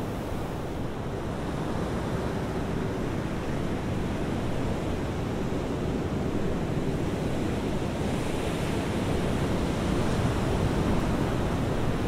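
Sea surf washing steadily on the shore, mixed with wind rumbling on the microphone, swelling slightly about eight seconds in.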